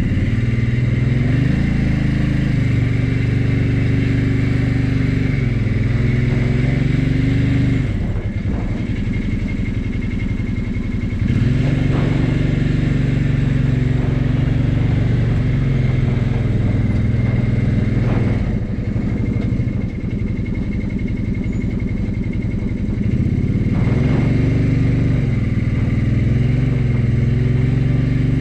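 Vehicle engine running under load while towing a sawmill trailer, its revs rising and holding for several seconds, then dropping back, about three times over.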